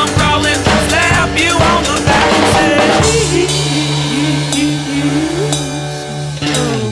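Rock music with a drum kit and a melody line. The drums drop out about three seconds in, leaving a held bass note under a wavering melody.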